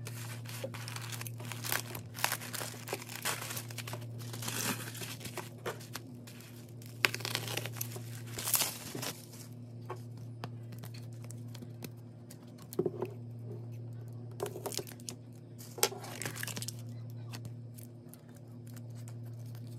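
A taped cardboard mailer being opened by hand: packing tape tearing and peeling, with cardboard and paper rustling and crinkling and sharp little clicks and taps. The handling is busiest in the first half and comes in short bursts after that. A steady low hum runs underneath.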